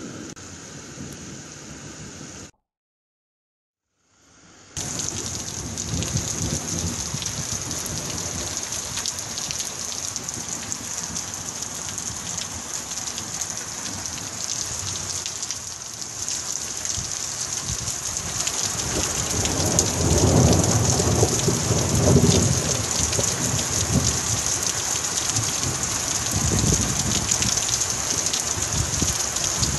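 Heavy thunderstorm downpour hissing steadily, with thunder rumbling in about two-thirds of the way through and again briefly near the end. The sound cuts out completely for about two seconds shortly after the start, then the rain fades back in.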